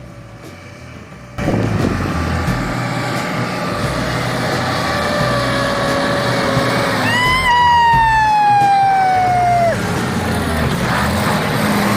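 Heavy truck running with a steady low rumble. About seven seconds in, a vehicle horn sounds for about three seconds, its pitch falling slowly, then cuts off sharply.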